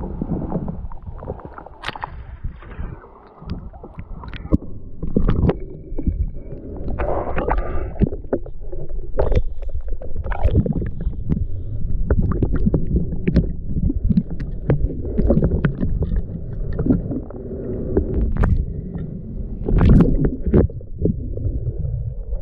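Sea water sloshing and splashing while wading and raking for clams, with muffled gurgling rumble as the microphone dips under the surface and scattered short knocks.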